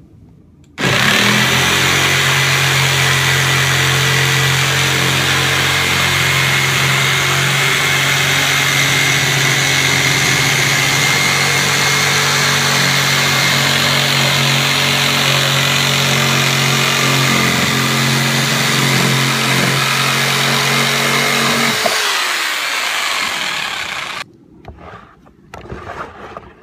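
An electric power tool's motor runs loudly and steadily with an even hum for about twenty seconds, then is switched off about 22 seconds in and winds down over a couple of seconds.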